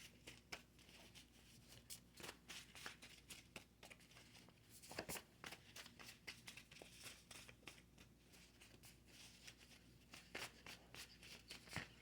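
Near silence with faint rustling and scattered soft clicks, a little louder about five seconds in: tarot cards being handled.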